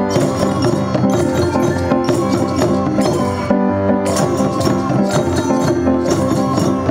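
Instrumental ensemble music with a steady beat: hand drums and other percussion played under pitched melodic instruments.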